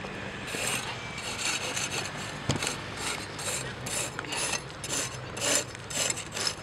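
Metal rake scraping through the clay infield dirt around a base in quick repeated strokes, about three a second, starting about half a second in, with one sharp knock midway.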